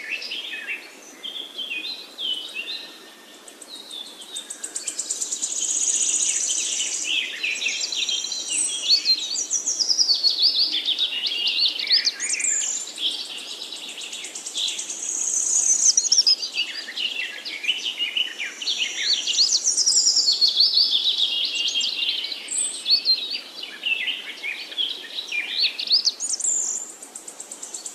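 A dense chorus of many birds chirping and calling, overlapping chirps and trills that swell and fade in waves.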